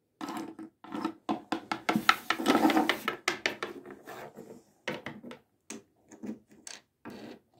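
Small plastic toy figures and dollhouse furniture being handled: a quick run of clicks, taps and rubbing, thickest about two to three seconds in, then a few scattered taps.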